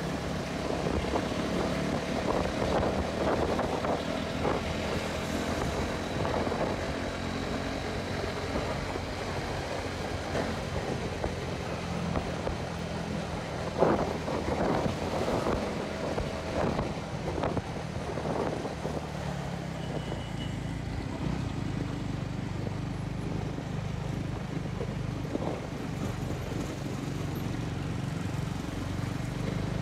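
Honda CB150R motorcycle's single-cylinder engine running while riding, with wind buffeting the microphone, its note shifting as the speed changes. A short loud knock about halfway through.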